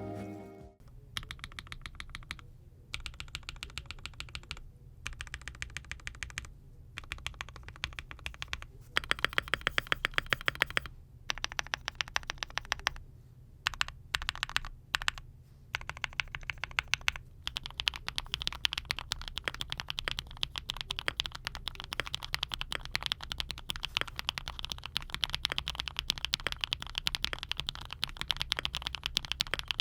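Typing on a lubed Createkeebs Luminkey80 mechanical keyboard with linear switches. It comes in bursts of fast keystrokes with short pauses, then turns to continuous rapid typing about halfway through.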